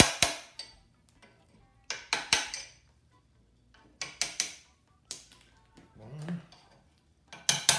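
Hammer tapping a dull steel chisel against the end seal of a 1974 VW Beetle ball-joint front axle beam's torsion tube to drive the seal off. The taps come as short metallic clinks in small groups of two or three, a couple of seconds apart.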